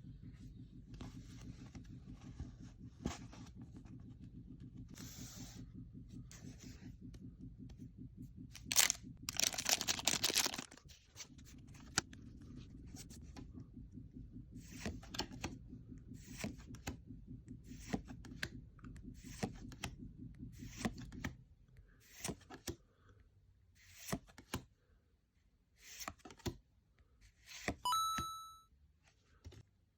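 Pokémon TCG booster packs being torn open and cards handled: foil wrapper tearing and crinkling, with a longer loud tear about ten seconds in and scattered crackles and clicks throughout. A steady low hum runs under it until about two-thirds of the way through, and a short electronic tone sounds near the end.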